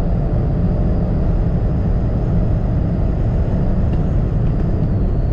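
Cabin noise of a Stage 1 tuned BMW 320i with its turbocharged 2.0-litre four-cylinder (B48) under hard acceleration at high speed, mixed with tyre and wind noise. It is a steady low drone with no gear change, and a faint high whine runs over it.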